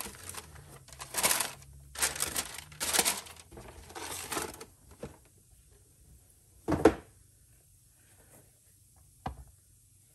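Tissue paper rustling and crinkling in four short bursts as it is pulled out of a cardboard shoe box. Later comes one loud, short thump, and a smaller knock near the end.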